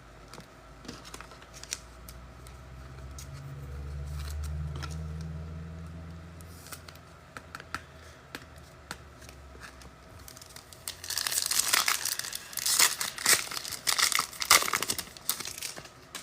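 A trading-card pack's wrapper being torn open and crinkled, loud and dense for the last five seconds or so. Before that, only faint scattered clicks and a low hum that swells and fades.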